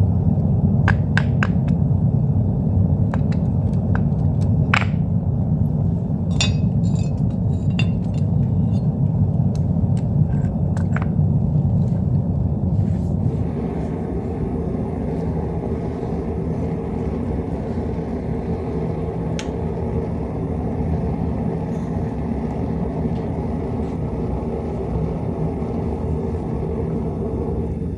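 Gas-fired metal-melting furnace's burner running with a steady low rumble. Over roughly the first half come scattered sharp clinks of steel tongs against the mold. Around the middle the level drops a little and the clinks stop, leaving the burner on its own.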